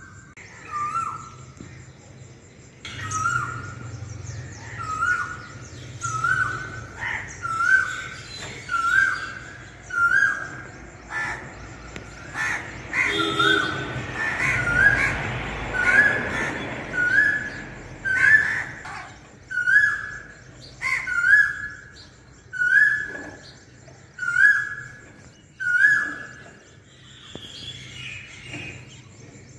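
A bird calling over and over, one short clear call about once a second, with other birds chirping. A rushing noise swells and fades near the middle.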